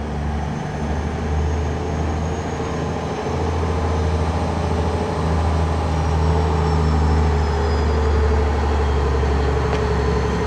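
Diesel engine of a Renault Magnum lorry running steadily at low speed as the truck and its straw-laden trailer roll slowly past, with a deep rumble and a faint high whine above it.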